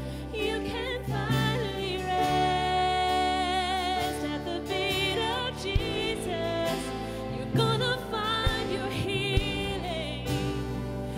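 Live worship band playing a song with women's voices singing the melody over guitars, drums and keyboard.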